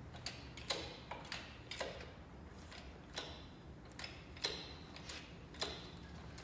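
Irregular sharp metallic clicks, roughly two a second, some with a brief ring, over a faint steady low hum.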